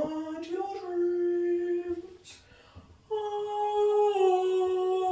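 A female voice singing wordless long held notes: one held for about two seconds, a brief pause, then a longer note about three seconds in that steps down slightly in pitch.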